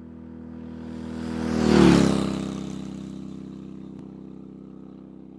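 Motorcycle engine passing by, as a library sound effect: it grows louder, peaks about two seconds in with a drop in pitch, and fades away.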